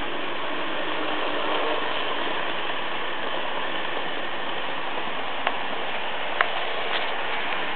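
Märklin H0 model trains running on metal track: a steady whirring rattle of small motors and wheels, with two sharp clicks near the end.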